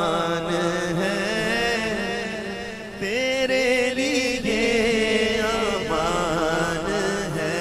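A man's voice singing an Urdu naat through a microphone, unaccompanied, in long wavering melismatic held notes over a steady low drone, with a short dip before a new phrase begins about three seconds in.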